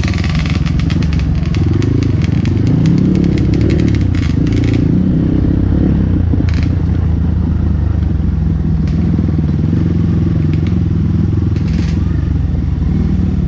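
Trail motorcycle engine running steadily at low speed, with a dense run of small clicks and rattles over the first five seconds and a few single clicks after.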